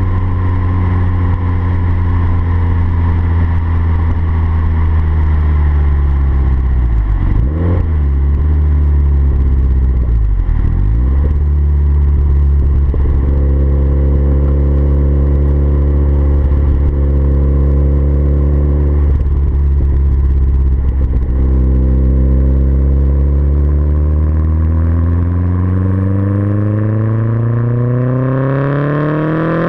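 Turbocharged Renault F7R four-cylinder engine running through a 3-inch exhaust, holding a steady note with two brief dips in pitch, then climbing steadily in pitch as it accelerates near the end.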